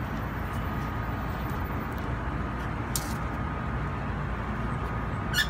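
Steady low outdoor background rumble, like distant traffic, with a faint steady high tone and a brief sharp click about three seconds in.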